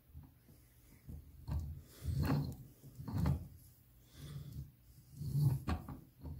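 Polarizing filter in its graduated ring mount being turned by hand: a series of low rubbing and bumping handling sounds, with a couple of sharp clicks near the end.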